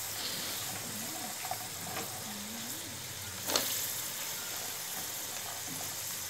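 Keema with freshly added potatoes and peas sizzling steadily in a karahi. One sharp metal clink about three and a half seconds in.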